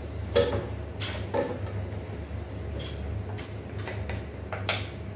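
Wooden spatulas knocking and scraping against a metal cooking pot as stir-fried bean sprouts and vegetables are tossed and mixed: about eight separate knocks, over a steady low hum.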